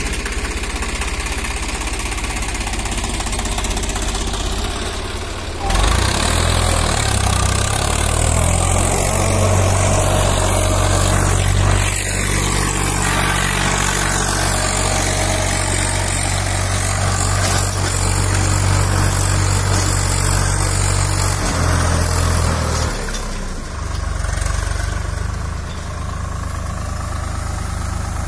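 Diesel tractor engine running steadily under load while pulling a disc harrow through the soil. The engine hum is much louder and fuller from about six seconds in until about twenty-three seconds in, when it drops back to a lower drone.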